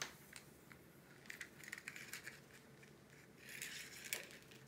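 Faint handling sounds as a small retractable tape measure is drawn out across a diamond painting canvas: a light click at the start and another about four seconds in, with soft scraping and rustling between.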